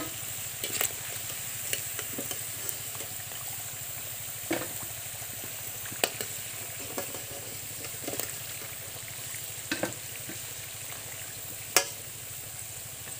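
Kachori deep-frying in hot oil in a karahi: a steady sizzle, broken by a few sharp clicks of the metal slotted spoon against the pan and plate as fried pieces are lifted out, the sharpest near the end.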